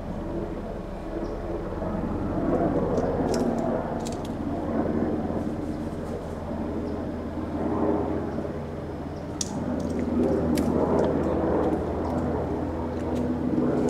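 Helicopter overhead: a steady low engine and rotor drone that swells and fades several times, with a few faint sharp ticks.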